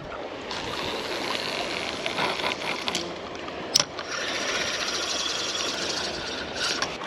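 Spinning reel's drag screaming as a hooked fish pulls line off the spool, a steady high buzz that breaks briefly with a sharp click a little before halfway.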